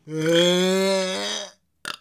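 A man's long, loud burp lasting about a second and a half.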